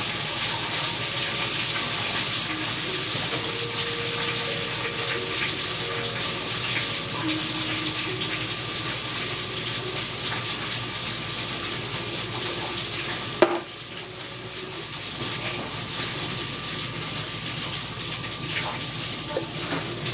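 French fries frying in a deep fryer: hot oil sizzling with a steady hiss. A sharp click about two-thirds of the way through, after which the sizzle is a little quieter.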